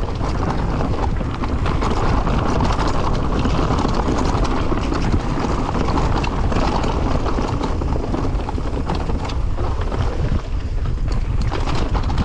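Wind buffeting the microphone over the rattle and rumble of a mountain bike's tyres and frame on a rough downhill trail, with many small knocks.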